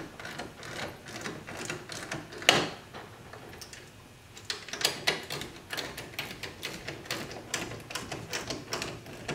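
Ratchet wrench clicking in quick strokes as a nut is run down onto a bolt, starting about halfway through. A single sharp knock a little over two seconds in.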